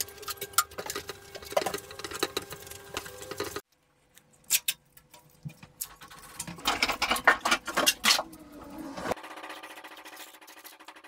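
A cloth rubbing and wiping down a PVC pipe assembly with acetone: repeated rubbing, rustling and small knocks, with two abrupt cuts in the sound. Near the end, masking tape pulled off its roll with a steady rasp.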